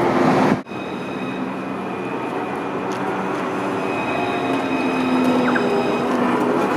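Luas light-rail tram passing at low speed on street track: a steady running hum with several high steady tones from its electric drive, growing gradually louder as it comes closer. The sound drops away abruptly about half a second in before the hum takes over.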